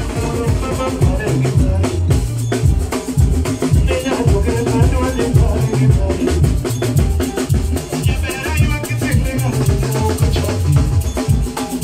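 Live band music with a steady drum kit beat over a strong bass line.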